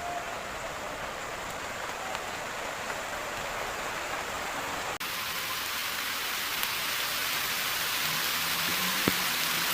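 Steady rushing hiss of water, with a sudden jump about halfway where it turns brighter, and a single sharp click near the end.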